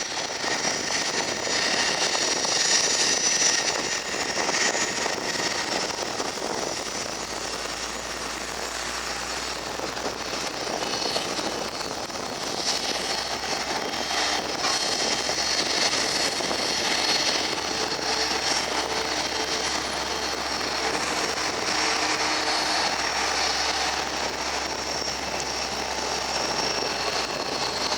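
Cessna Citation Sovereign's twin Pratt & Whitney Canada PW306C turbofans running, a steady jet rush with a high whine over it.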